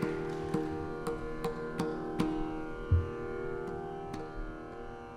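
Saraswati veena playing a slow Carnatic phrase, a string of separate plucks each ringing on over a steady drone. A single low thump comes about three seconds in, and the playing thins out and fades near the end.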